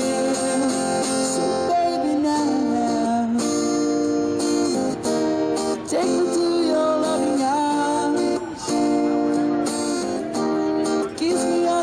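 Acoustic guitar music: a guitar strummed and played under a melody line that slides between notes.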